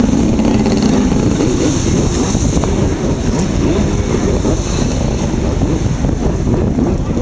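Freestyle jet ski with a stock Kawasaki engine, fitted with a 'B' pipe and mag pump, running hard as it carves and spins through its own spray, with water splashing and wind buffeting the microphone.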